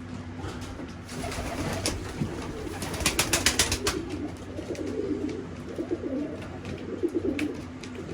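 Young racing pigeons cooing in a loft, with a quick run of sharp taps about three seconds in.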